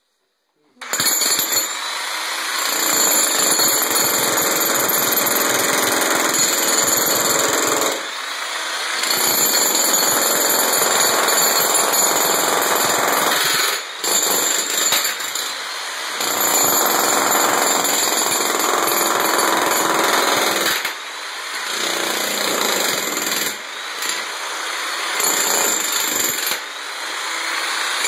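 Corded electric demolition hammer chiselling into a tiled concrete floor. It starts about a second in and runs in long stretches, broken by several brief pauses.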